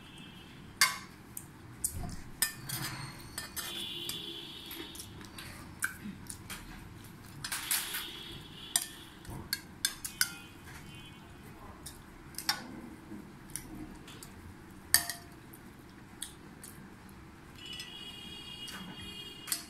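Steel serving spoon clinking and scraping against ceramic serving bowls and plates as curry is ladled out: scattered sharp clinks, a few of them ringing briefly.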